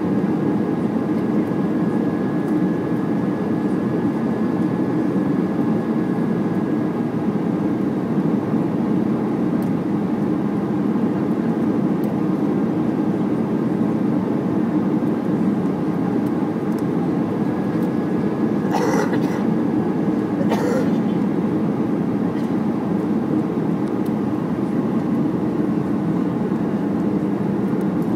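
Steady cabin noise of a jet airliner on descent: a low engine and airflow roar with a faint high whine over it at times. Two short noises come about two-thirds of the way through.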